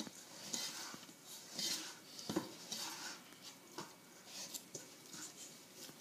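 Hands kneading and pressing stiff dumpling dough in a stainless-steel mixing bowl: a run of soft swishing rubs, one or two a second, with a few light knocks of hand and dough against the metal bowl.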